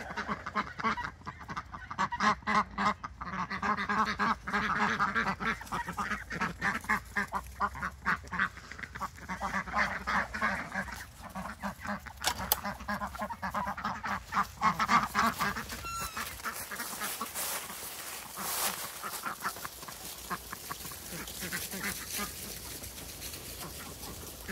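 A flock of domestic ducks quacking rapidly and continuously, many birds calling at once. About two-thirds of the way through, the quacking thins out and gets quieter.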